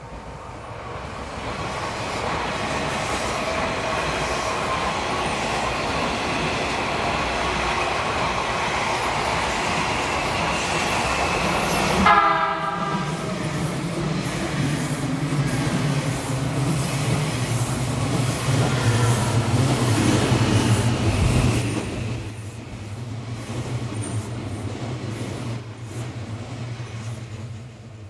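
Odakyu Line commuter electric train approaching and passing close by: a rising rush of rail noise, a short horn blast about twelve seconds in as the train draws alongside, then the steady low hum and clatter of the cars going past, dying away near the end.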